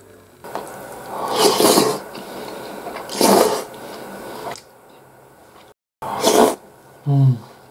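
Beef stew slurped noisily off a spoon, three loud slurps in a few seconds, followed by a short hummed "mm" near the end.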